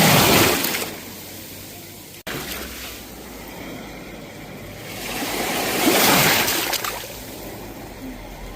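Sea waves washing onto a shore, two surges about six seconds apart, with a short sudden gap in the sound a little over two seconds in.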